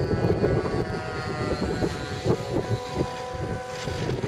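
Radio-controlled model airplane's motor and propeller droning at a steady pitch as it comes in low to land.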